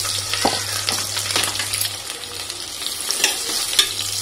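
Sliced shallots sizzling in hot oil and ghee in a steel pressure cooker, with a spoon stirring and scraping them, clicking against the pot a few times.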